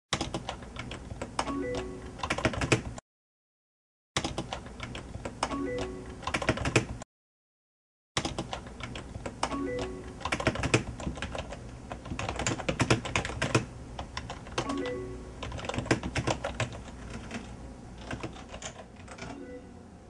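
Rapid typing on a computer keyboard, a dense irregular clatter of key clicks. The sound cuts out abruptly twice for about a second, about three and seven seconds in.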